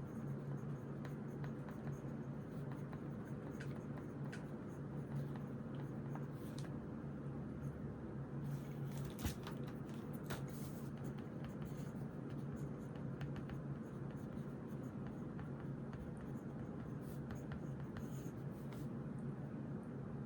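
Pen writing on paper: irregular short scratching strokes, busiest about halfway through, over a low steady hum.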